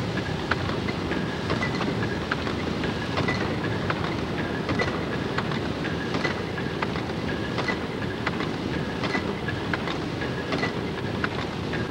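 Vertical triple-expansion steam pumping engine running, a steady mechanical clatter with sharp clicks and a ringing tick that repeats about every second and a half with the engine's stroke.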